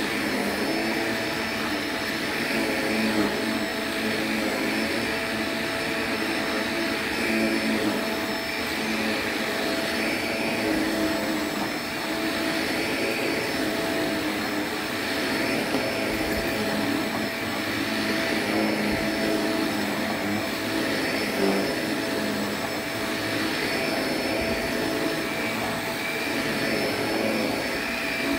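Shark upright vacuum cleaner running steadily while being pushed over a low-pile rug, its motor hum and a constant whine holding level with slight swells as it moves.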